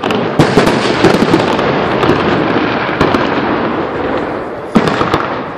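Fireworks display: aerial shells bursting in a dense stream of crackling and bangs, with sharp loud reports about half a second in, around three seconds in and shortly before the end.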